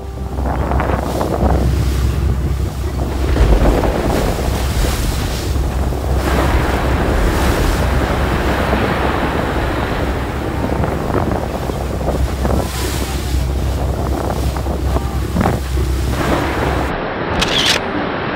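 Wind buffeting the microphone on a moving boat's deck, over the rushing of the churning wake water behind it. The low wind rumble drops away about a second before the end.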